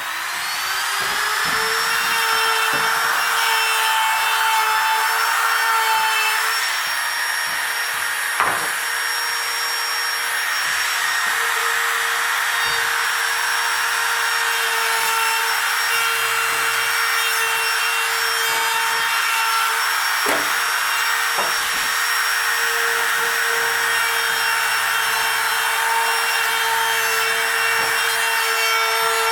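Handheld electric router spinning up and then running steadily with a high whine as it cuts a hinge mortise into a wooden door jamb, guided by a template. A few short knocks sound as the router is worked against the template.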